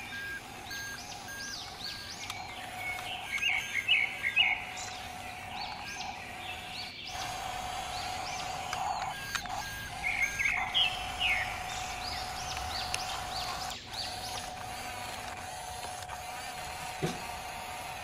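A looped backing track of chirpy, bird-like whistles over a steady tone, the same phrase repeating about every seven seconds.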